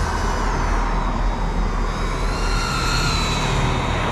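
GEPRC CineLog 35 cinewhoop quadcopter in flight, its motors and propellers giving a whine whose pitch rises and falls with throttle changes, over a steady low rumble.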